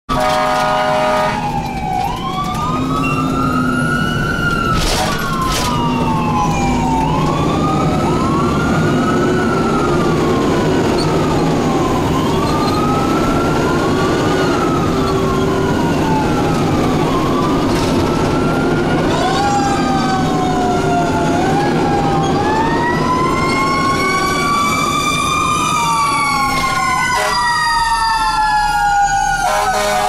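Fire engine siren wailing, its pitch sweeping up and down over and over, heard from inside the fire engine's cab over the truck's engine and road rumble. A steady blaring tone sounds at the start and again near the end.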